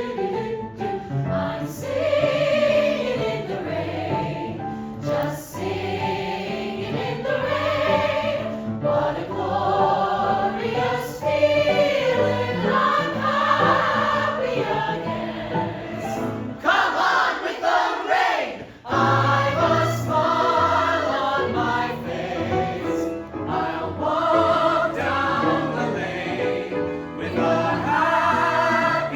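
Ensemble of voices singing a show tune together over instrumental accompaniment. About two-thirds of the way through, the low accompaniment drops out for about two seconds.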